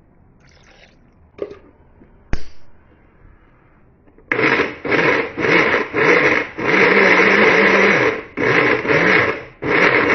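An electric kitchen blender pulsed on and off in about seven bursts of uneven length, its motor spinning up each time and cutting off sharply, after a few light knocks and a sharp click.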